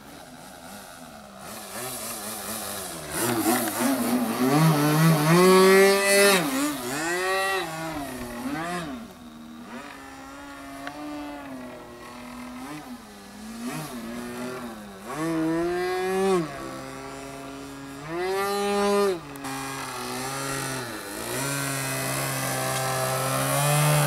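A radio-controlled model airplane's motor and propeller. The throttle is repeatedly opened and closed, so the pitch keeps rising and falling. Near the end it settles into a steady, louder tone as the plane hangs nose-up in a hover.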